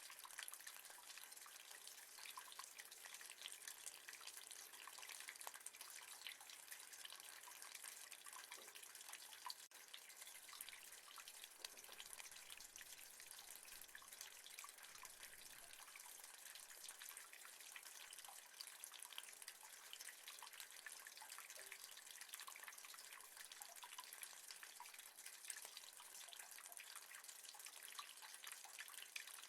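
Rain falling on metal: a faint, steady hiss made of countless small drop ticks.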